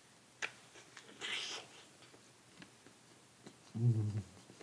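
Biting into and chewing a crisp apple: a sharp crack, then a short crunch about a second in. Near the end comes a brief low hummed "mm", the loudest sound.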